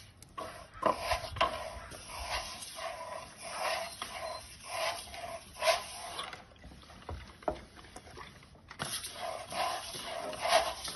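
Steel finishing trowel scraping over stucco that is starting to set, in repeated strokes. The strokes stop for about two seconds past the middle, then start again.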